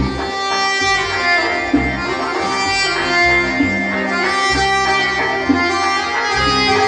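Live traditional folk music: an accordion playing a sustained melody over the beat of a hand-played frame drum (doira).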